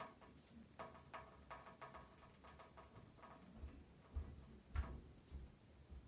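Faint, quick run of short squeaky chirps and clicks, then a few low soft thumps and a sharper click near the end, as a green-cheeked conure clambers upside down on a hanging terry towel.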